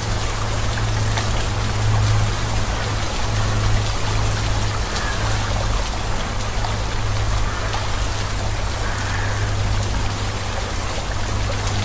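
Steady rain sound, with a low hum underneath that swells and eases.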